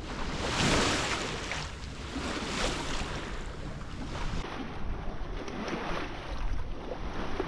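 Wind buffeting the microphone and water rushing and washing along the hull of a sailing yacht under sail, with the engine off. A bigger wash of water swells up about a second in and again near three seconds.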